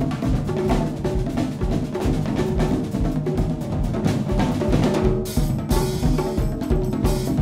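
Percussion quartet of drum kits and congas playing together: regular kick-drum thuds under busy drum strokes, with a bright wash of cymbals added about five seconds in.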